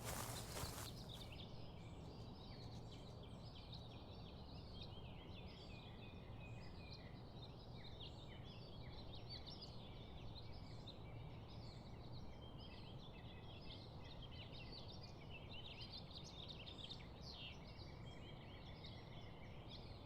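Woodland birdsong: many small birds chirping and trilling in a steady chorus over a faint, even rushing background, with a short burst of noise about the first second.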